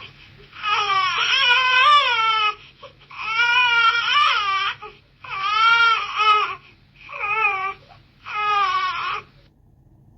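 Infant crying: five wavering wails, each one to two seconds long, separated by short breaths, the last two shorter.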